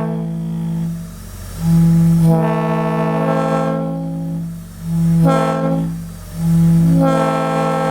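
WABCO E2-B1 locomotive air horn blowing a chord in repeated blasts. One blast ends about a second in, a long blast follows, then a short one around five seconds, and another runs on near the end.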